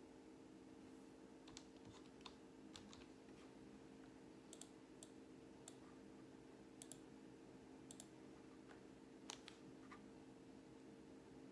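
Faint, irregular clicks and taps from someone underlining and annotating a text, over a faint steady low hum.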